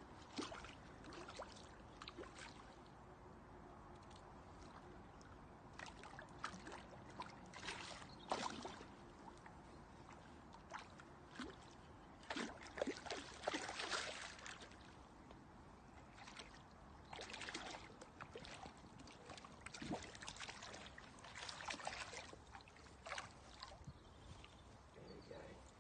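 Water splashing in irregular bursts as a hooked brown trout struggles at the surface in the shallows at the bank and is taken in hand, the busiest splashing about halfway through.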